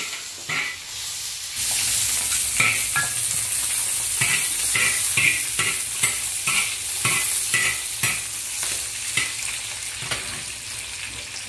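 Diced potato and chopped greens sizzling in hot oil in a large iron wok while a metal spatula stirs and scrapes them, about two scrapes a second. The sizzling rises sharply about a second and a half in.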